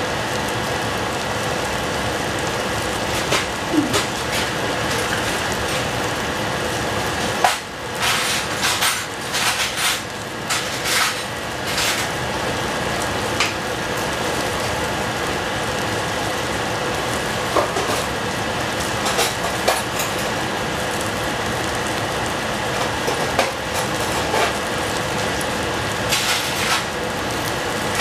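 Food sizzling steadily in hot oil in a pan, with scattered clicks and scrapes of a cooking utensil against the pan, most of them about a third of the way in.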